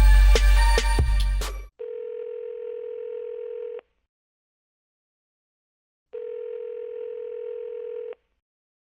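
A beat-driven music track cuts off about two seconds in. Then a telephone ringback tone is heard through the handset, two rings of about two seconds each, four seconds apart: a call ringing out on the other end, unanswered before it goes to voicemail.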